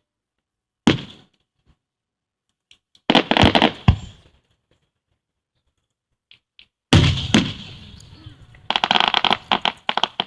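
Aerial fireworks going off: a single bang about a second in, a quick cluster of bangs around three seconds in, then the loudest boom about seven seconds in, followed near the end by a dense run of crackling pops from crackle shells.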